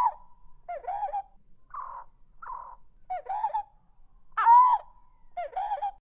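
Slowed-down bulbul calls (light-vented and black bulbul), deepened into a reconstructed Microraptor call: a run of about seven harsh, downward-bending calls roughly a second apart, two rougher, noisier ones near the middle, the loudest a little after four seconds in.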